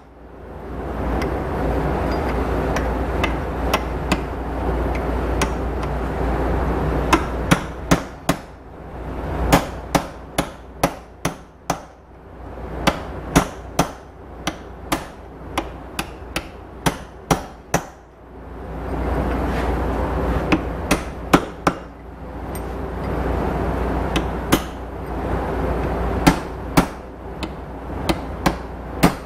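Hammer blows on the steel parts of a bush hog driveline U-joint. Sharp strikes come in irregular runs, about two a second in the middle. Over two long stretches a steady rushing noise starts and stops behind them.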